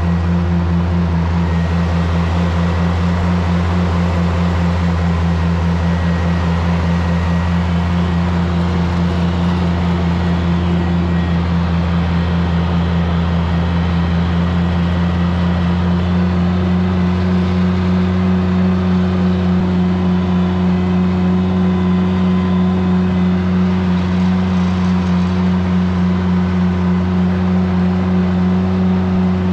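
Oliver 880 tractor's six-cylinder gasoline engine running steadily under way. About halfway through its note rises slightly and grows a little louder.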